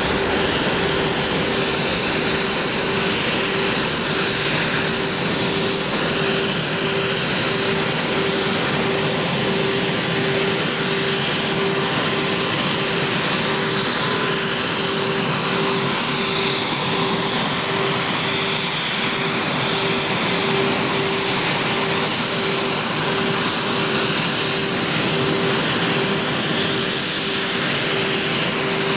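Jet engines of Air Force One, a four-engine Boeing 747-based VC-25A, running steadily as it rolls along the runway. A broad rush carries a steady high whine and a low, evenly pulsing hum.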